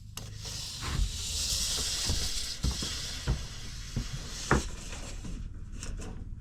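Measuring and marking out a length on a wooden board: a hissing scrape in the first half, with about eight sharp knocks and taps spread through the first four and a half seconds.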